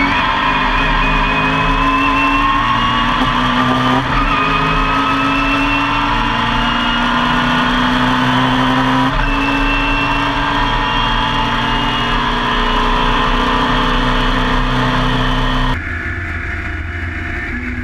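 In-car sound of a Mini Miglia race car's A-series engine pulling hard, its pitch climbing slowly, with short breaks about four and nine seconds in. Near the end the engine note suddenly falls and quietens as the throttle closes.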